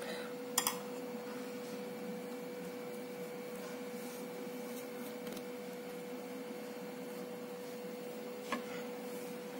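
A steady hum with a fainter high whine over quiet room noise, with two light clicks, one about half a second in and one near the end.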